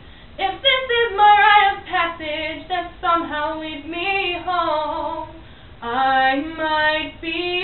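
A woman singing solo a cappella, with no accompaniment, her voice gliding through a melodic line. There is a brief pause about five and a half seconds in before she sings on.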